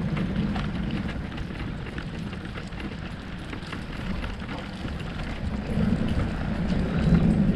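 Riding noise from a moving bicycle on wet asphalt: wind buffeting the microphone over tyre and road rumble, with small rattles and clicks throughout. The low rumble grows louder near the end.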